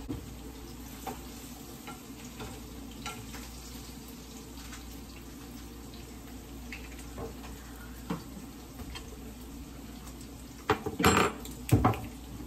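Fish sizzling in a frying pan, with scattered light clinks of a utensil against the pan. A few loud knocks and clatters near the end.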